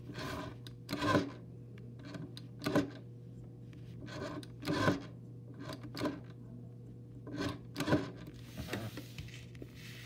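Rotary dial of a replica rotary telephone being wound round and let go, number after number. Each spring return gives a short burst of clicking, about eight times at uneven gaps.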